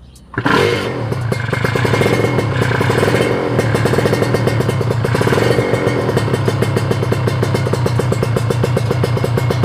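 Kawasaki Ninja RR 150's single-cylinder two-stroke engine running steadily through its aftermarket expansion-chamber exhaust, with the baffle and silencer insert back in place so it is less loud than open. The sound comes in suddenly just after the start.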